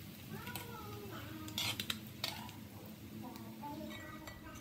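Metal tongs clacking against a frying pan as fried fish are lifted out of the oil, with a cluster of sharp clicks about halfway through.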